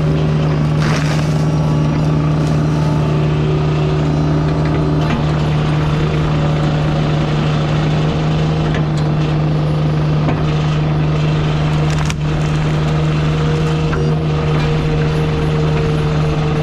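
Heavy land-clearing machine's diesel engine running at a steady, constant speed, with a few short knocks, one sharper about twelve seconds in.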